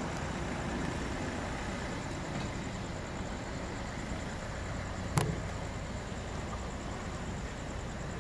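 Distant jet engines of a taxiing Boeing 767-300F freighter, a steady rumble and hiss with no change in power. A single sharp click comes about five seconds in.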